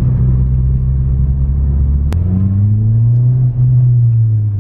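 Ford Fiesta ST's 1.6-litre turbo four-cylinder through a 3-inch Scorpion non-resonated cat-back exhaust, heard from inside the cabin. It runs at a steady low drone, breaks off abruptly about two seconds in, then the engine note rises as the car accelerates and levels off near the end.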